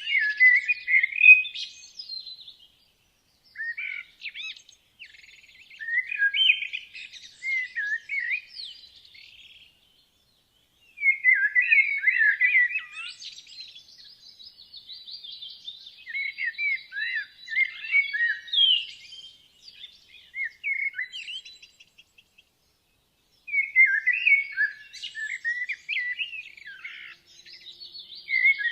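Woodland songbirds singing rich, warbling song phrases a few seconds long, separated by brief silences.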